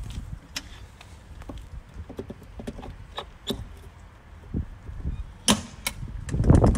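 Scattered clicks and knocks of an electric-vehicle charging terminal's side door and cable socket being handled, the sharpest about five and a half seconds in, with a louder low rumble near the end.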